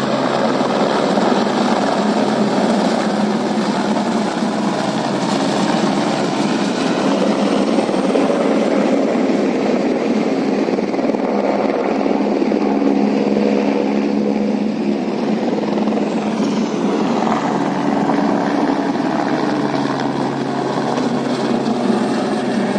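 Helicopter turbine and rotor noise, loud and steady, as helicopters lift off from the helipad and fly low past.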